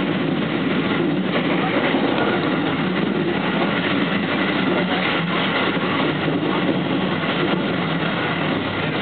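Steady running noise of a JR Special Rapid electric train at speed, heard from just behind the driver's cab.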